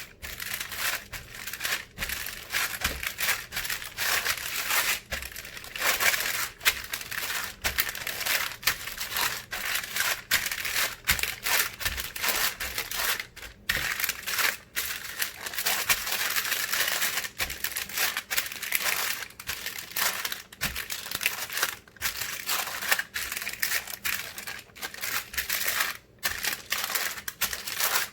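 Packaging crinkling and rustling as it is handled, with only short gaps.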